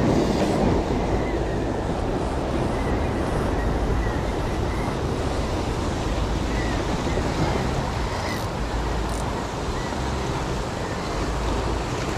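Ocean surf washing and breaking over the rocks, with wind buffeting the microphone.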